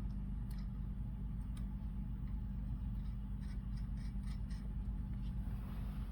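Faint light clicks and scrapes of small metal parts and tools being handled while fitting brake caliper hardware, several clicks close together about three and a half to four and a half seconds in, over a steady low hum.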